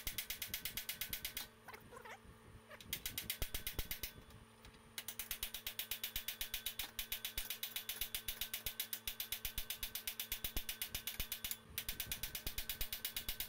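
Pneumatic air hammer driving a ball-joint separator fork, in bursts of rapid, even blows that stop and start again several times as it works at a seized joint.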